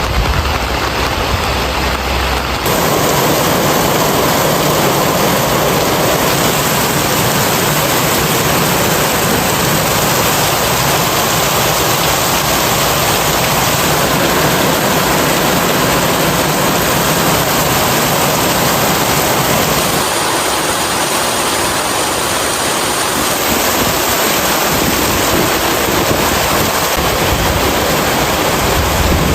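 Heavy rain pouring down steadily, a loud, even hiss.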